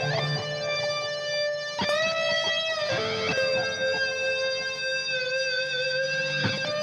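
Electric guitar fitted with an EMG DG-20 pickup set, played on the neck pickup: a few slow, long-sustained single notes, one bent up slightly about two seconds in.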